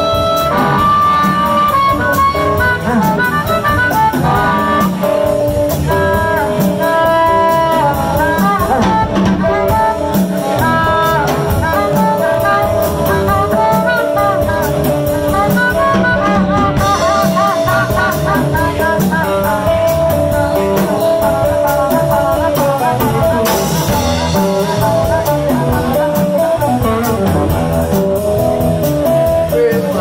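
Live blues band playing an instrumental break: an amplified harmonica lead, played cupped against a microphone, with bending, wavering notes over electric guitar, upright bass and drum kit.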